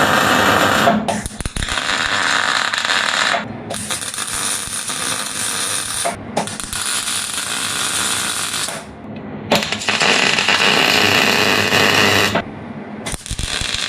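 Electric welding arc crackling in a series of short runs, about six of them, each stopping and restarting after a brief pause, as washers are welded around the dipper arm's pivot bore.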